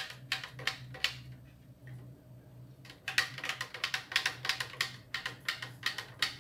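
Long plastic spoon stirring liquid in a plastic blender jar, knocking against the jar walls in quick clicks about three to four a second. The clicking pauses for nearly two seconds about a second in, then resumes. A steady low hum runs underneath.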